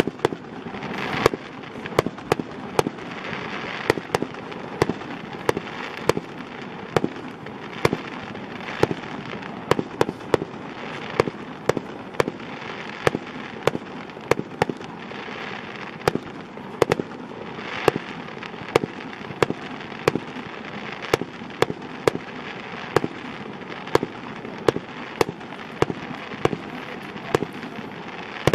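Aerial fireworks bursting in a steady rapid series, about two sharp bangs a second, over a continuous background hiss.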